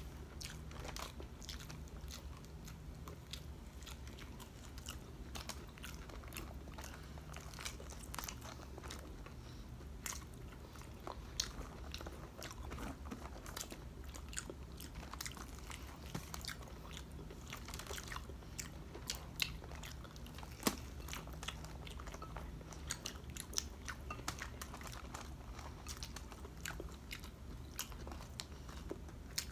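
Close-miked chewing and crunching of crispy breaded fried pork chop and rice, with many small sharp crunches scattered throughout over a low steady hum.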